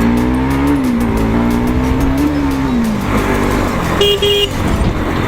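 Motorcycle engine running on the road, its pitch rising and falling twice as it speeds up and eases off, over steady road and wind noise. About four seconds in, a vehicle horn gives two short beeps.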